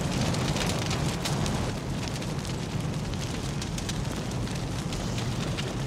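Fire burning after a blast: a steady low rumble with scattered crackles.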